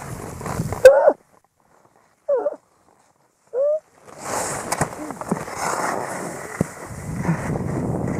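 Skier's fall on a snowy piste heard through a helmet camera: wind on the microphone and skis scraping snow, with a sharp knock about a second in. The sound then drops out apart from two short voice sounds, and the rush of wind and skis on snow comes back about halfway through.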